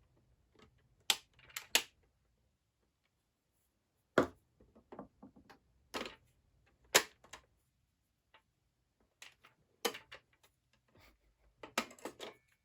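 Irregular sharp clicks and knocks from a plastic puzzle box being handled and worked, its parts and keys clacking, about a dozen scattered through the stretch with a quick cluster near the end.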